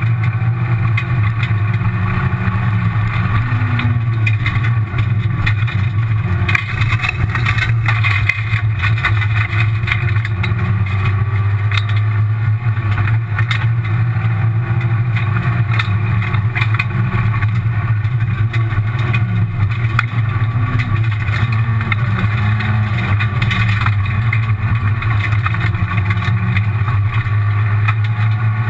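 Rally car engine heard from inside the cabin at speed on a gravel stage, its pitch rising and falling as the driver works the throttle and gears, over a steady low drone and constant road and gravel noise. A brief louder clatter comes about seven seconds in.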